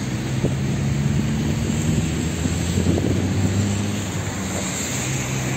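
A steady low engine hum over a noisy outdoor background.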